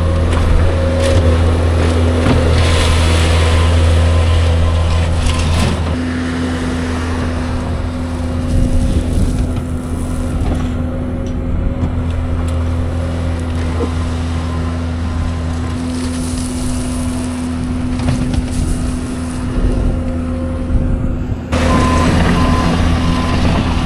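Diesel loader engine running steadily, with a bucket at work; the sound changes abruptly near the end.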